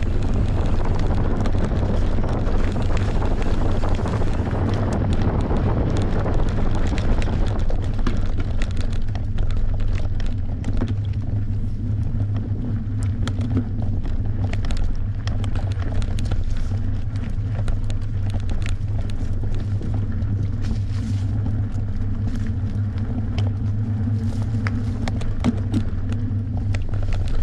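Wind buffeting the microphone during a fast descent on a Merida One-Sixty full-suspension enduro mountain bike. The bike and tyres make many short clicks and rattles over rough ground throughout.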